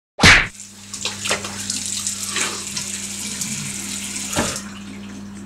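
A tap running into a bathroom sink while hands scoop and splash water onto a face, several splashes standing out, over a low steady hum. A sharp loud knock comes right at the start, and the water noise drops about four and a half seconds in.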